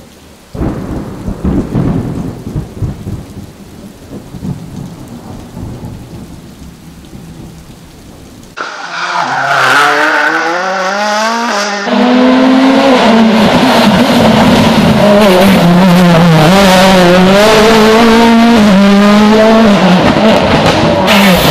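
A rough, crackling rumble, then a sudden cut to a rally car's engine revving hard: its pitch climbs and drops again and again through gear changes and throttle lifts, and it grows to full, loud running about twelve seconds in.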